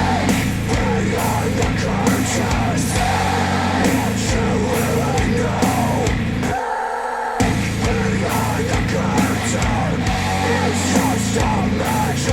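Heavy rock music with distorted guitars and yelled vocals, played back through Focal Chora 806 bookshelf speakers driven by a NAD C 328 integrated amplifier. The bass and drums drop out for under a second a little past halfway, then the full band comes back in.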